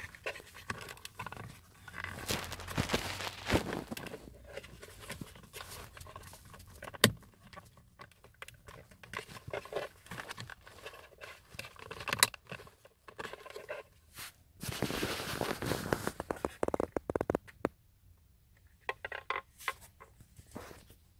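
Plastic scraping and rustling as a car's Bluetooth module and its wiring connector are handled behind the dashboard trim, with two sharp clicks, about seven and twelve seconds in, and a burst of close rustling near the end.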